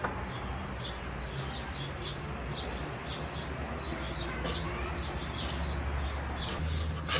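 Small birds chirping in quick, repeated short high calls, over a steady low rumble.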